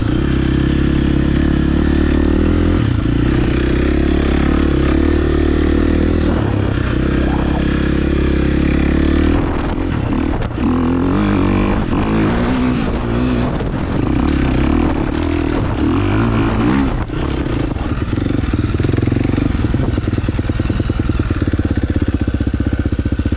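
Dirt bike engine running as it is ridden, holding a steady note at first, then revving up and down repeatedly through the middle part.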